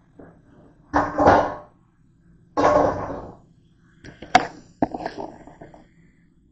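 Metal mixing bowl being rinsed under a running kitchen tap: water splashing into and off the bowl in two bursts, then a few sharp knocks and clatter.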